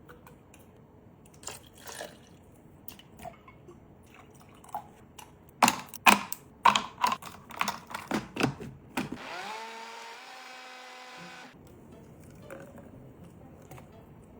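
A run of sharp clicks and knocks, like kitchenware being handled, then a pitched hum that rises briefly and holds for about two seconds before cutting off.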